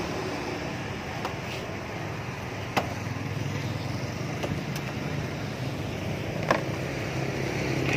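Steady street traffic noise with a low hum, broken by a few sharp light clicks, one about three seconds in and another near six and a half seconds.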